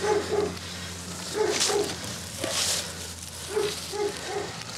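A dog barking repeatedly, mostly in quick pairs of barks, with two short bursts of hiss in the middle and a steady low hum underneath.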